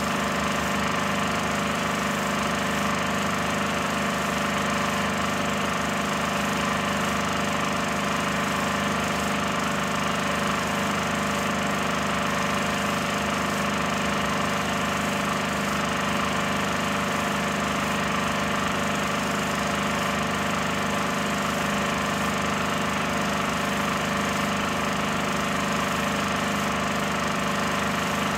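16mm film projector running steadily, a constant mechanical hum with no change in speed.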